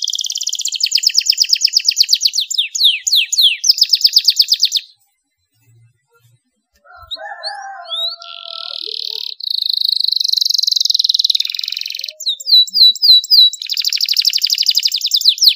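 Domestic canary singing in rapid trills of repeated high notes. It breaks off for about two seconds midway, then gives a long buzzy rolled trill, a few quick downslurred notes, and another fast trill near the end.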